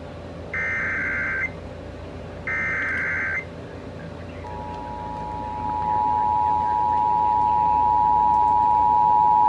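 Emergency Alert System SAME header: two bursts of about a second each of the digital data warble, then the steady two-tone EAS attention signal comes in about four and a half seconds in and grows louder. The tones open a Required Monthly Test.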